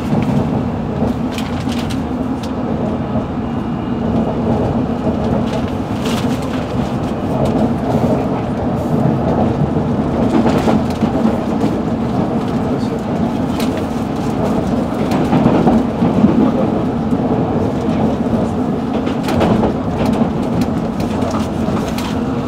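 Metropolitan line Underground train running through the sub-surface tunnels, heard from inside the carriage: a loud, steady rumble with occasional sharp clicks from the wheels and track.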